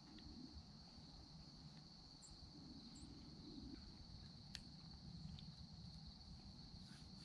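Faint, steady chorus of crickets, one continuous high trill, over a low rumble of background noise, with a single sharp click about four and a half seconds in.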